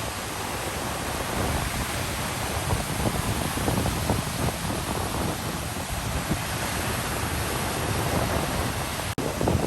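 Sea waves washing onto the shore, a steady rushing hiss, with wind rumbling on the microphone. The sound cuts out for a split second near the end.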